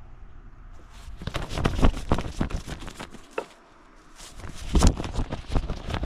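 A black cloth goose flag on a wooden stick being waved, its fabric flapping and rustling in two spells of quick, irregular flaps, the second starting about four seconds in.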